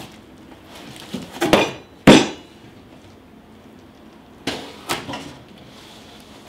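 Large cardboard box being slid off a packed computer case and handled on a table: a scraping thump and then the loudest sharp thump about two seconds in, and two lighter knocks close together a few seconds later.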